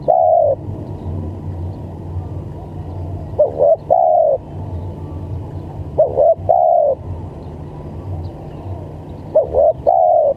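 Spotted dove (tekukur) cooing in the stuttering 'gagap' style used as a lure call: four phrases about three seconds apart, each a short clipped note followed by a longer arched coo. A steady low hum runs underneath.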